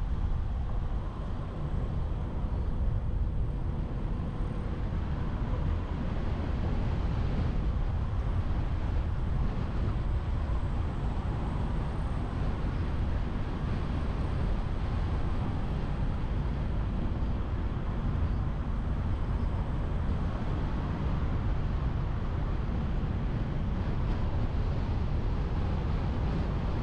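Car driving along a road: a steady low rumble of tyre, engine and wind noise, with wind on the microphone.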